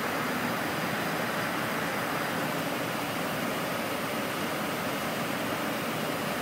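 Steady rushing background noise on an Airbus A310 flight deck, an even hiss with no clicks or changes.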